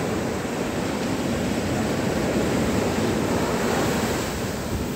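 Pacific Ocean surf breaking and washing up onto a black sand beach: a steady, dense rush of water, heaviest in the low range, easing slightly near the end.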